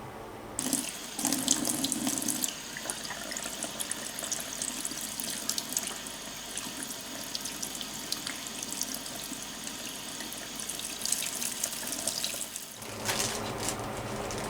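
Water running into a drum washing machine through its water inlet valve. The flow starts about half a second in, gushes hardest for the first couple of seconds, then runs steadily and stops shortly before the end.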